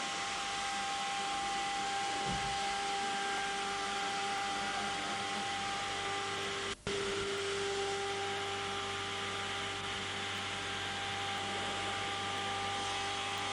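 CNC router running steadily as it routes through layered veneers, a steady hiss with a few held whining tones. It drops out for a split second about seven seconds in, then carries on with a lower tone standing out more.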